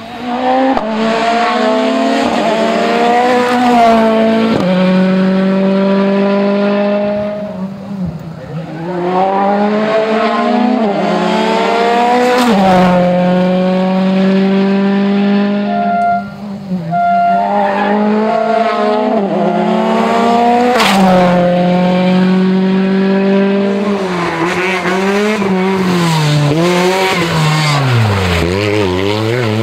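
Turbocharged four-cylinder World Rally Car engines driven hard. The engine note climbs and drops back again and again as the cars change up through the gears, then falls away under braking and climbs again as a car accelerates out near the end.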